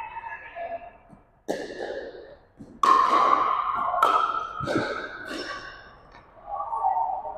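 Pickleball rally: the plastic ball is struck by paddles and meets the hardwood gym floor, with about five sharp pocks roughly a second apart. Each one rings on briefly in the large hall.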